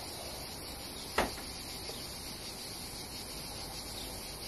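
Steady, even insect chorus in the background, with one sharp click about a second in.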